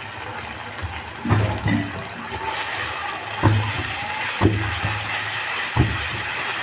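Onions and chepa shutki (fermented dried fish) sizzling in hot oil in a wok. The sizzle grows louder about halfway through, and a metal spatula scrapes and knocks against the pan several times as the mixture is stirred.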